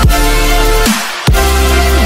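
Electronic intro music with a heavy bass; the bass drops out briefly about a second in, then comes back in with a hit.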